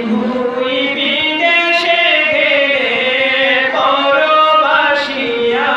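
A man singing a Bengali patriotic song solo into a stage microphone, holding long, slowly gliding notes.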